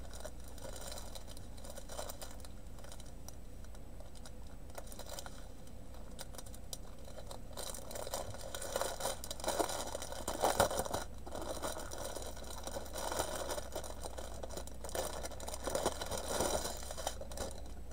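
Small plastic bags of diamond painting drills being handled, the plastic crinkling and the tiny beads rattling inside, starting about halfway through; before that only a faint steady hum.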